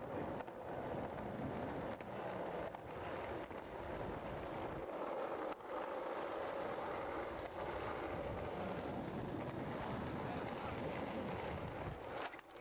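Skateboard wheels rolling on asphalt: a steady roar, with a few sharp clicks as the wheels cross pavement joints or pebbles.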